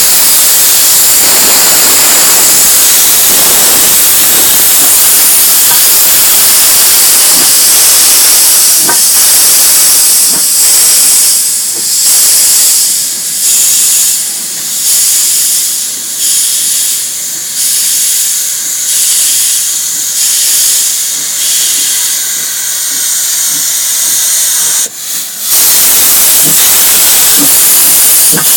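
Steam locomotive pulling away: a loud steady hiss of escaping steam, then from about eleven seconds in slow rhythmic chuffs, about one a second, before the loud steady hiss returns near the end.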